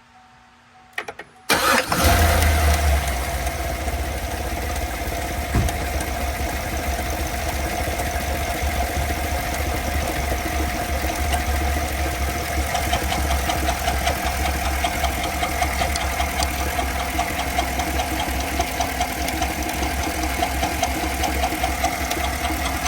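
2015 Cadillac Escalade's 6.2-litre V8 starting about a second and a half in and settling into a steady idle with a fast, even ticking, which the owner puts down to a bad lifter.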